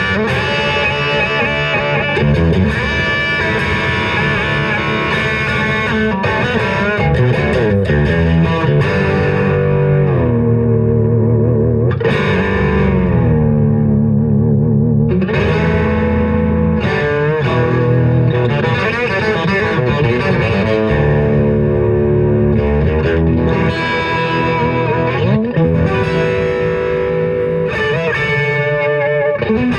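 Electric guitar fitted with a Guyker tremolo bridge, played through distortion and effects, with the pitch wavering in the middle from tremolo-arm vibrato. The playing is a test of whether the bridge holds tuning.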